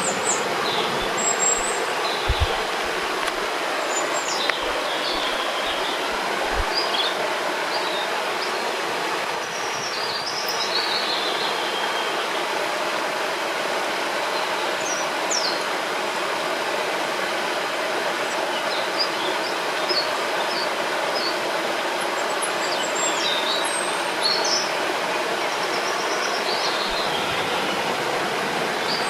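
River water flowing and rushing steadily, with small birds singing over it in short chirps and whistled phrases scattered throughout.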